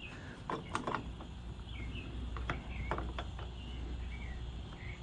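Sharp metal clicks and scrapes from a crescent wrench being handled and worked, a handful of them spread over the first three and a half seconds. Birds chirp faintly.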